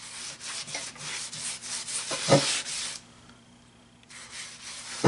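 A paper towel rubbing vegetable oil over the rough cast surface of an Ozark Trail cast iron Dutch oven lid, a scratchy rubbing that stops for about a second just after the middle and then starts again. A single short knock about two seconds in is the loudest sound.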